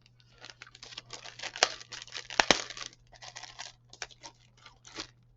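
Plastic crinkling and rustling as a model kit's clear-parts sprue is handled, with a couple of sharper clicks about a second and a half and two and a half seconds in.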